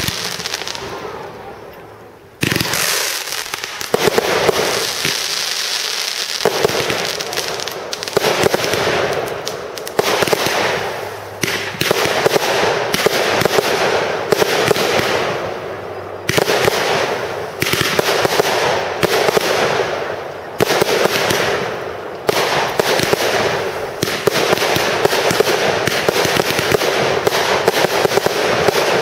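Aerial fireworks display: shells bursting overhead in quick succession, a dense run of bangs and crackling, with a short lull and then a loud new burst about two and a half seconds in.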